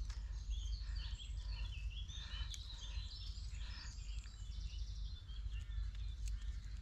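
Songbirds chirping and singing, with a short fast trill about five seconds in, over a steady low rumble.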